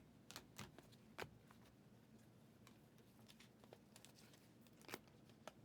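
Near silence with a few faint, short clicks and ticks from trading cards being handled and flipped.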